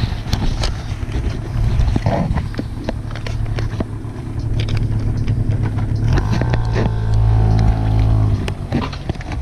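A motor vehicle engine running steadily, its hum swelling and strongest about six seconds in, with jacket fabric rustling and handling knocks against the camera.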